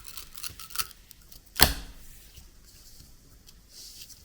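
Light clicks and one sharp knock about a second and a half in, as a washi tape roll and a 3D-printed plastic cutter are handled and set down, followed by a faint rustle.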